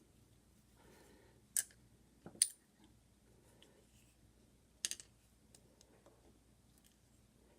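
Small metal lock parts of a gutted Kwikset deadbolt being handled, giving a few sharp clicks: one, a quick pair about a second later, and another near the middle.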